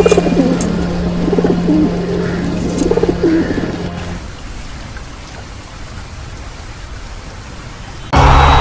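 Pigeons cooing, low repeated calls over a steady low hum. The cooing stops about four seconds in, leaving faint background noise, and loud music cuts in right at the end.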